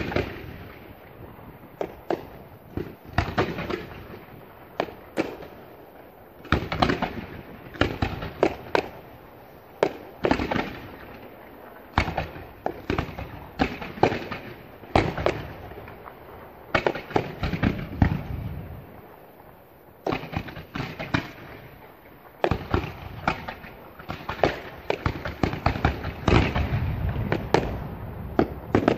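Fireworks display: shells launching and bursting in rapid clusters of sharp bangs, with short lulls between the volleys.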